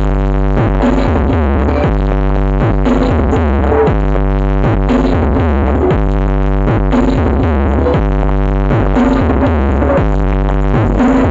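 Electronic dance music played loud through a large sound system, with a heavy, steady bass line, synthesizer and drum-machine beat.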